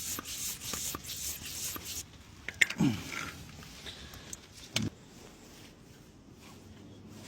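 Quick rubbing strokes, like a cloth or brush scrubbing mud off a bike, for the first couple of seconds. They are followed by two short squeaks falling in pitch, about two seconds apart.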